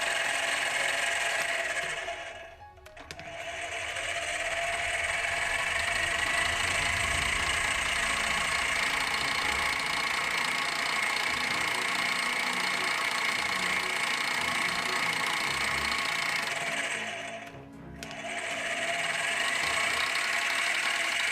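Metalworking machine tool running steadily with a whining tone over the cutting noise. It fades out and back in twice, a few seconds in and near the end.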